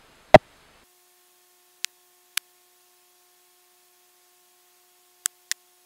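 Relacart MI-Passport MI-2 wireless microphone link dropping out as the transmitter moves out of range: the audio cuts to silence, broken by a loud pop just after the start and a few short sharp clicks, over a faint steady tone.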